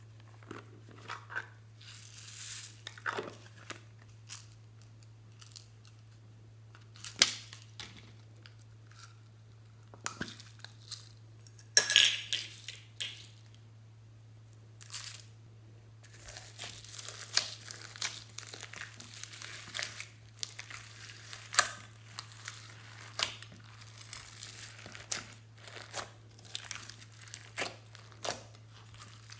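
Scattered clicks and rattles of a small plastic container and loose toppings being handled, then, from about halfway, hands kneading and pressing slime packed with foam beads, glitter and polymer-clay fruit slices: a dense run of small crackles and squishes. A steady low hum lies underneath.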